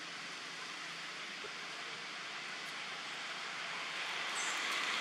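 Steady hiss of outdoor background noise with no clear single source, swelling louder about four seconds in.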